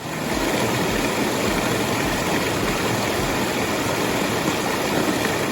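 An engine running steadily at an even level, a dense rumbling noise with no change in speed.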